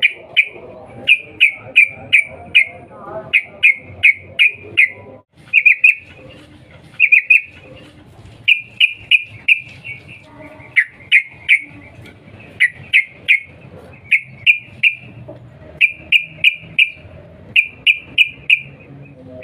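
Yellow-vented bulbul (trucukan) giving its 'cuk cuk' call: short notes repeated in quick runs of two to five, with brief pauses between the runs.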